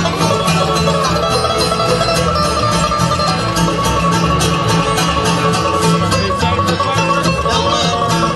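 Music: upbeat plucked-string music in a bluegrass style, with a quick steady beat.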